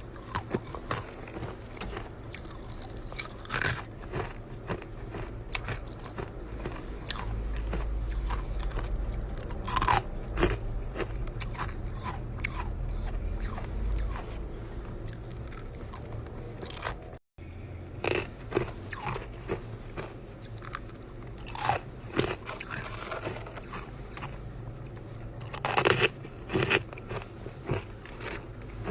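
Close-up biting and chewing of chest-freezer ice, with loud, irregular crunches over a low hum.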